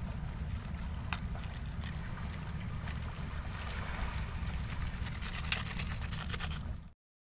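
A low steady rumble of wind on the microphone, with a few clicks and light crinkling as plastic seasoning sachets are torn open over a pot of noodles. The crinkling grows denser toward the end, then all sound cuts off abruptly.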